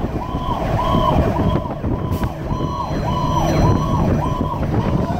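Fire engine's electronic siren in a fast up-and-down yelp, a little over twice a second, heard from inside the cab of a 2010 Pierce Arrow XT pumper over its engine and road rumble while running to a call.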